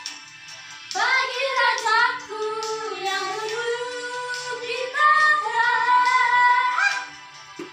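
A woman singing without accompaniment, holding long notes that slide in pitch, in two phrases; the second, from about five seconds in, is louder.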